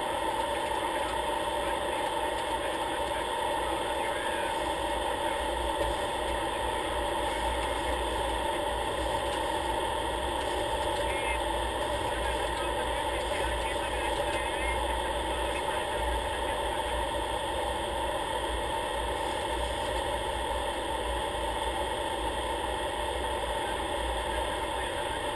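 Aircraft engine running steadily in flight, a constant even drone with a low rumble underneath.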